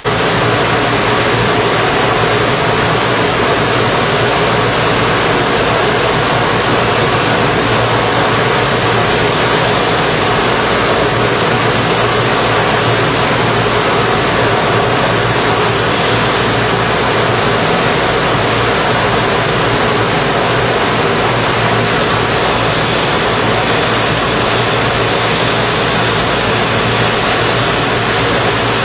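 Lelo BBDD brush sanding machine running: its motors and spinning abrasive brush rollers and disc brush give a loud, steady, unbroken mechanical noise.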